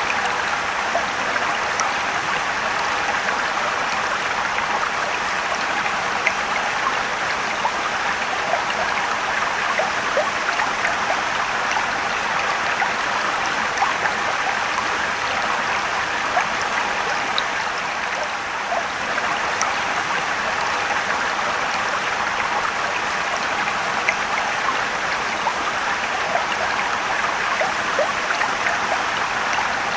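A mountain stream running over rocks: a steady rush of water with small splashes and trickles throughout.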